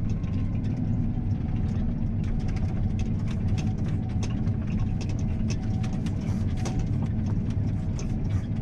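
John Deere T670i combine running, heard from inside the cab: a steady low engine rumble with many light clicks and rattles throughout.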